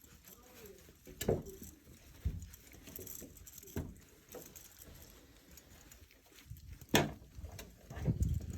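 Six-week-old Welsh Terrier puppies scuffling and moving about, with light pattering and a few sharp knocks and thumps, the loudest about a second in and about seven seconds in.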